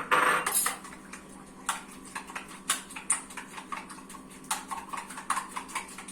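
A utensil clinking and tapping against a dish in quick, irregular knocks, opening with one sharp, louder knock.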